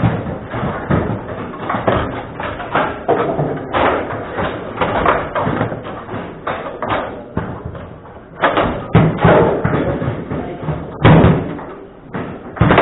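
Table football in play: the ball being struck, passed and shot by the rod-mounted players and hitting the table walls, heard as irregular sharp knocks and thuds. The loudest knocks come in a cluster about two-thirds of the way through and again near the end.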